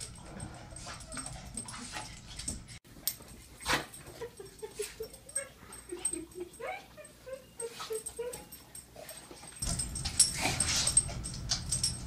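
Excited dog whining in a run of short, high whimpers while greeting its owner, with scattered soft bumps. Near the end a louder rustling of movement comes in as the dog scrambles about.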